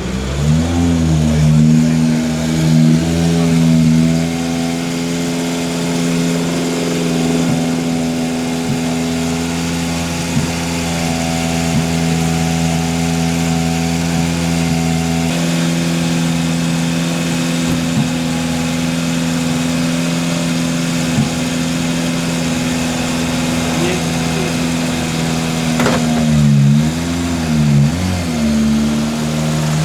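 Car engine idling at a steady pitch, then revved up and down a few times near the end.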